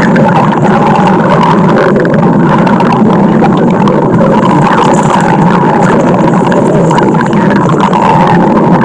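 Stomach growling, loud and continuous without a break.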